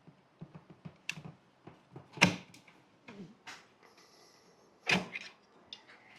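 Light clicks and knocks of hand tools and plastic trim parts being handled. Two louder knocks come about two seconds in and again about five seconds in.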